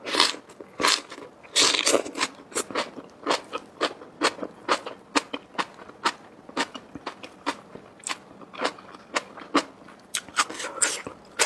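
A person biting and chewing crunchy food close to the microphone, a steady run of sharp crunches about twice a second, loudest in the first couple of seconds.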